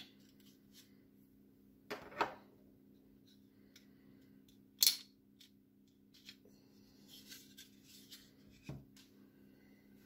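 Plastic clicks and snaps as an LED strip circuit board is worked out of a third brake light's clear plastic housing: a pair of clicks about two seconds in, a louder snap about five seconds in, then light scraping and a soft knock near the end.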